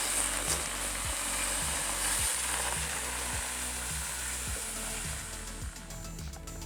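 Background music with a steady beat, a little under two beats a second, over a dense hiss.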